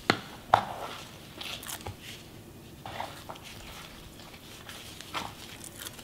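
Scattered soft knocks and taps of a plastic burger press and ring mold being handled, with raw ground beef pressed and squished in gloved hands. The sharpest tap comes about half a second in, with fainter ones near two, three and five seconds.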